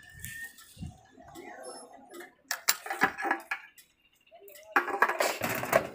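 Clinking and rattling in two bursts about a second long each, the first about two and a half seconds in and the second, slightly louder, near the end.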